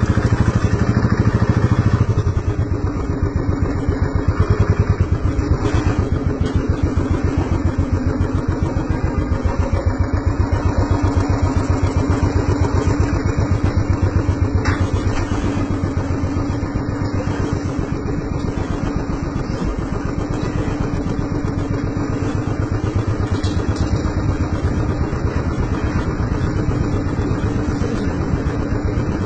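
Royal Enfield Bullet's single-cylinder four-stroke engine running steadily with an even, rapid beat as the motorcycle rides along.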